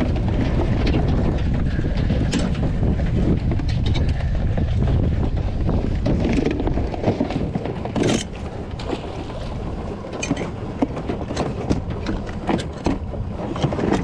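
Wind buffeting the microphone as a loud, steady rumble that eases about halfway through. In the second half come sharp knocks and clicks, plastic tub against the boat's side, as crabs are sorted.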